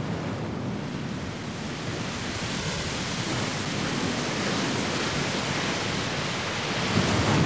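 Steady rushing noise of wind and sea, slowly swelling and loudest near the end.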